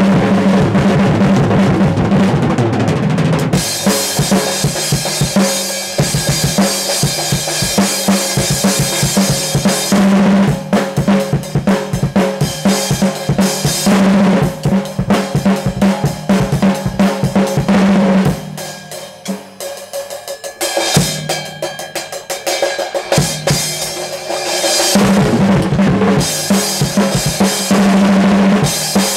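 Drum kit played in a fast solo: rapid tom and snare strikes over the bass drum, with cymbals washing over long stretches. Past the middle it drops for a few seconds to quieter, sparser hits, then builds back up with cymbals near the end.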